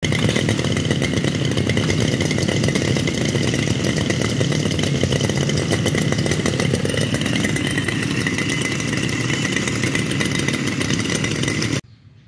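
Small two-stroke engine of a Mitsubishi T240 mower running steadily with a constant whine, stopping abruptly near the end.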